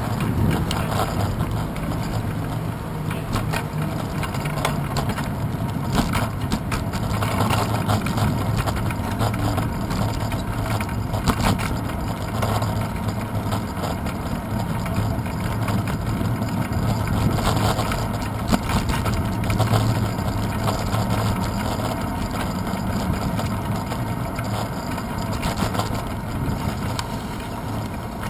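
Bicycle riding over a paved path, heard through a handlebar-mounted GoPro Hero 2: a steady rumble of tyres and road vibration with frequent short knocks and rattles from bumps in the surface.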